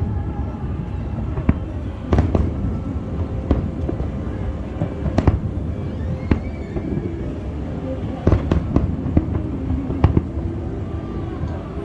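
Fireworks display: a continuous low rumble of bursts with about a dozen sharp bangs at irregular intervals.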